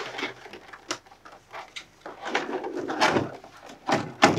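A large clear plastic packaging tray scraping and crinkling against cardboard as it is slid out of its box, in several uneven strokes with a sharp click about a second in and louder scrapes near the end.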